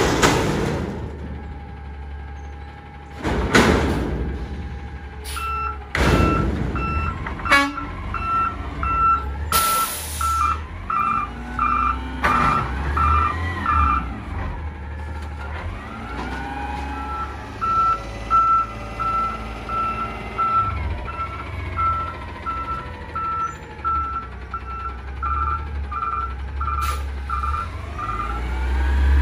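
Peterbilt 320 natural-gas front-loader garbage truck with its engine running. There are several heavy bangs in the first few seconds as the dumpster is emptied over the hopper and set back down, and a short air hiss about ten seconds in. After that its reversing alarm beeps about twice a second in two long runs as it backs up.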